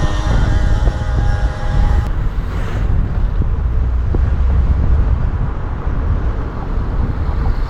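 Motor vehicle driving uphill, engine running under a heavy low rumble; a pitched engine tone stops about two seconds in, leaving the rumble and road noise.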